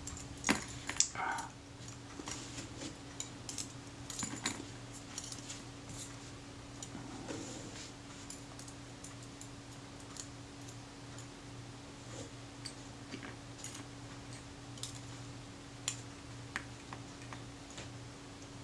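Small metallic clicks and light taps of steel tweezers handling tiny screws and parts on a Kodak Retina IIIS shutter's mechanism plate, scattered and irregular, the loudest about half a second and a second in. A steady low hum runs underneath.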